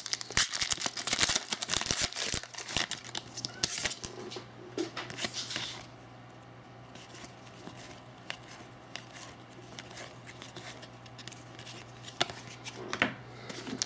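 Hockey trading cards being flipped through and shuffled by hand, with quick rustling and clicking. It is busy for the first half, then mostly quiet over a low steady hum, with a few more card clicks near the end.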